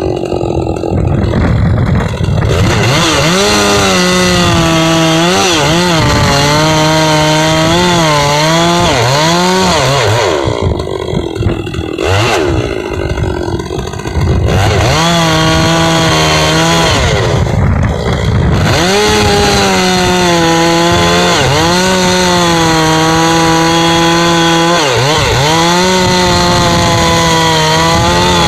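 Two-stroke chainsaw at full throttle cutting hard, dry oak with a 24-inch 3/8 .050 chain. The engine pitch sags repeatedly as the chain bites under load and recovers between bites. It drops back briefly about ten seconds in, then revs up and cuts again.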